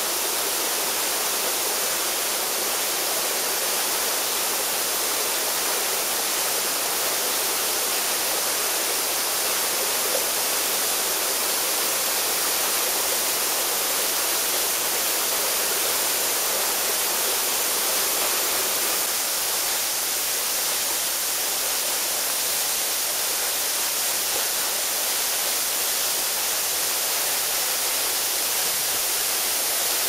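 Waterfall of two thin streams falling down a basalt cliff into a plunge pool: a steady, even rush of falling and splashing water, with little deep rumble.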